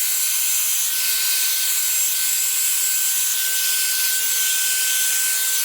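Small handheld hair dryer running steadily, blowing poured acrylic paint across a canvas, with a steady whine over the rush of air.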